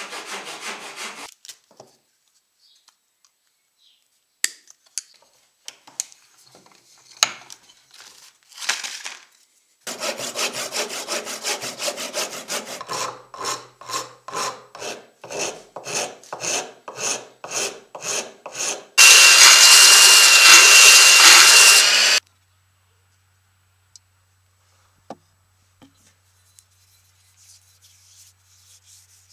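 A hand saw cutting a wooden handle blank, stopping about a second and a half in, followed by scattered clicks of handling. Then a file rasps back and forth on a clamped wooden handle scale in even strokes, about two a second, for around nine seconds. The loudest sound comes next: about three seconds of steady loud hiss with a high whine, cutting off suddenly.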